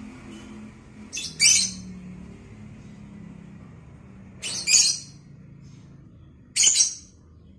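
A caged lovebird giving three short, shrill, harsh calls: about a second in, again at about four and a half seconds, and once near the end, each a quick double note. A steady low hum runs beneath.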